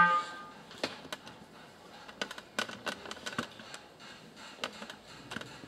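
A held clarinet note ends in the first half-second, then about a dozen irregular light clicks and taps follow in a quiet, slightly echoing hall.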